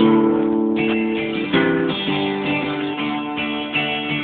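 Acoustic guitar strummed, chords changing every second or two: an instrumental break between sung verses.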